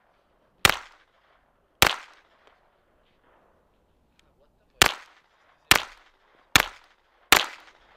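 Lignose Einhand .25 ACP pocket pistol firing single shots, each a sharp crack with a short echo: two about a second apart, then after a pause of about three seconds four more in quicker succession, under a second apart, with another shot right at the end.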